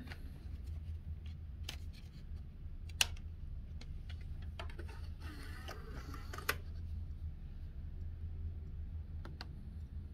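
A music CD being loaded into a USB CD drive: scattered sharp handling clicks, the loudest about three seconds in and near six and a half seconds, with a short mechanical rustle of the disc going in just before the second one, over a steady low hum.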